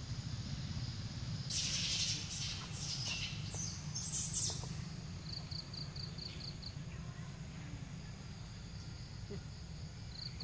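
A bird chirping a quick run of about seven short, high notes, over a steady low rumble, with two brief bursts of hissing noise a little before it.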